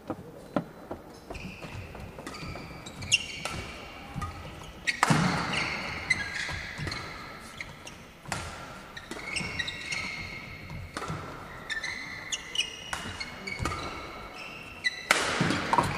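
Badminton rally: rackets striking the shuttlecock with sharp pops, and court shoes squeaking in short high chirps on the synthetic court mat. A burst of noise, likely spectators reacting, rises near the end.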